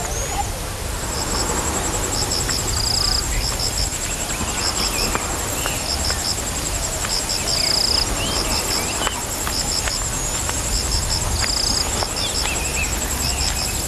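Open-country ambience of insects chirping: a steady high trill and groups of short repeated chirps, with scattered bird calls and a low rumble beneath.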